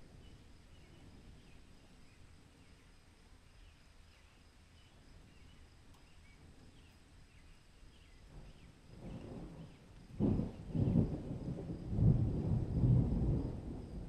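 Faint outdoor ambience with soft, repeated chirping. About nine seconds in, a low rumble of thunder swells up and rolls loudly in waves through the last few seconds.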